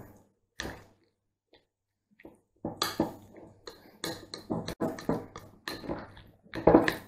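Metal spoon stirring a mayonnaise-dressed salad in a glass bowl: irregular clinks and scrapes of the spoon against the glass. A few strokes early, then a short pause, then near-continuous busy stirring from about three seconds in.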